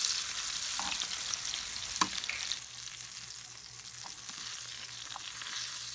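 Mackerel shallow-frying in hot oil in a pan, sizzling steadily. A metal spoon knocks against the pan as the fish are turned, sharply once about two seconds in. The sizzle drops quieter about two and a half seconds in.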